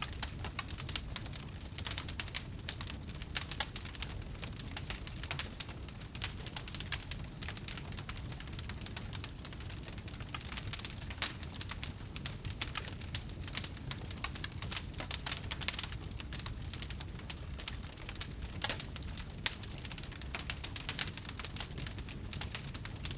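Wood bonfire burning and crackling: a dense, irregular patter of small snaps and pops, a few sharper ones, over a low steady rumble of the flames.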